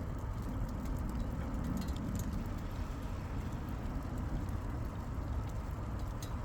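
Steady rainfall with a constant low rumble underneath and scattered sharp drips or taps.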